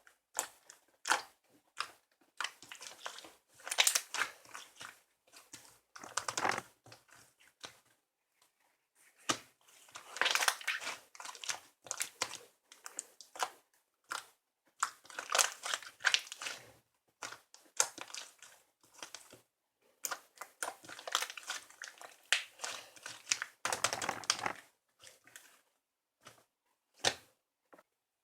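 Crinkling and rustling in irregular bursts, with short sharp clicks between them, in a small room.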